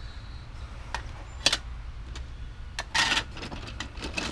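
Small plastic toy pieces being picked up and handled: a few sharp clicks and a short clatter, over a steady low hum.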